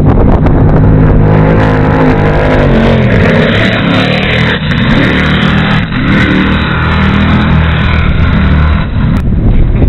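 46-foot Skater offshore racing catamaran's Sterling engines running at full speed as it passes close by, the engine note falling about three seconds in as it goes past, over the rush of spray off the hulls.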